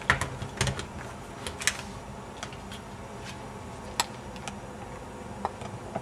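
Clicks and taps of a Dell Latitude E6410 laptop being opened and switched on. There is a quick cluster of clicks in the first two seconds, then single clicks spaced about half a second to a second apart.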